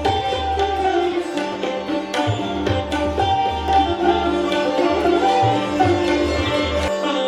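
Indian classical-style instrumental music: a plucked string instrument plays a gliding, sliding melody over a steady drone, with low tabla strokes that stop near the end.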